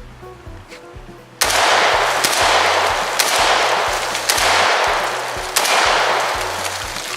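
A 7.62x39mm AK rifle (Arsenal SLR-107FR) firing about five shots at roughly one a second, each with a long echoing tail. The shots start suddenly about a second and a half in, over background music.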